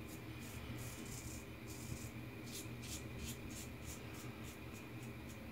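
Blackbird safety razor with a Gillette Stainless blade scraping through lathered stubble in short, faint strokes, about three a second, over a steady low hum.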